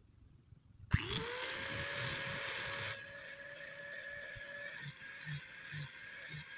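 Angle grinder switched on about a second in, its motor whining up to speed, then grinding along a forged steel knife blade with a pulsing rhythm of about two strokes a second near the end.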